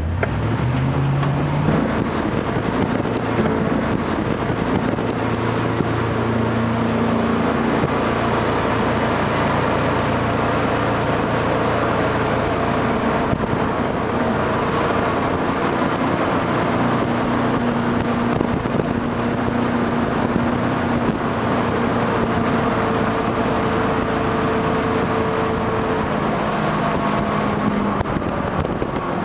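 Jet boat engine running hard, with water rushing past the hull. The engine note climbs over the first couple of seconds, then holds steady with small shifts in pitch.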